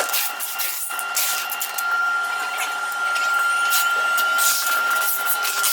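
A machine running with a steady high whine, with scattered clicks and knocks over it.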